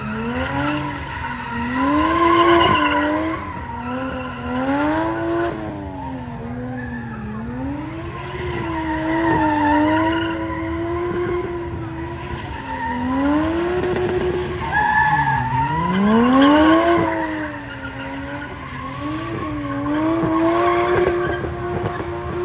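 Gymkhana car's engine revving hard, its pitch climbing and dropping again and again and held high for a few seconds at a time, with a deep dip and climb about two-thirds through. Tyres squeal and skid as the car slides through the course.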